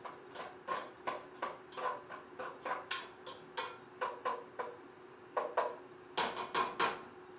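Cooking spoon scraping and knocking against a pot on the stove, about two or three strokes a second, with a quicker, louder run of knocks near the end. A faint steady hum runs underneath.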